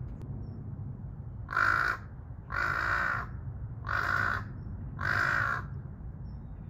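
Large-billed crow cawing four times, about a second apart, each caw drawn out, starting about a second and a half in.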